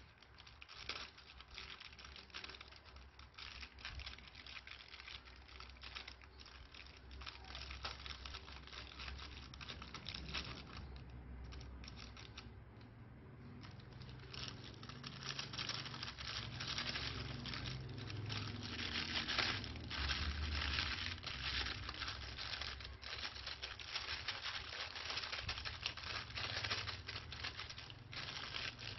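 Plastic piping bag crinkling as it is squeezed, with small beads dropping and pattering onto slime from about halfway on. There is a short lull before the middle, and it is busiest a little past the middle.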